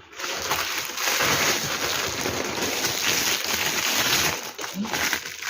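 Packaging rustling and crinkling steadily as it is handled.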